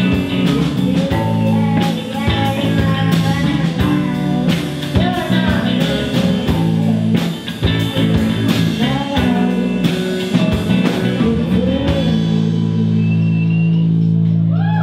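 Indie rock band playing live: a woman singing over electric guitars, bass guitar and drums. About twelve seconds in the drums stop and a held guitar chord is left ringing.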